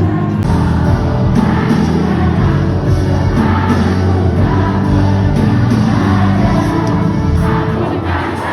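Background music with singing voices over a full, steady accompaniment.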